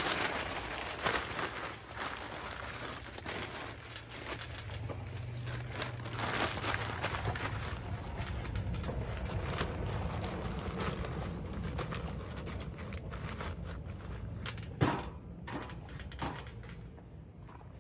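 Newspaper being crumpled and rustled by hand and stuffed into a metal chimney charcoal starter, an irregular crackling paper noise, with a sharp knock about fifteen seconds in.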